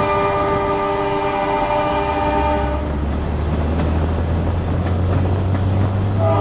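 Diesel locomotive's air horn holding a steady chord of notes, cutting off about three seconds in. A low rumble from the passing train follows, and the horn sounds again just before the end.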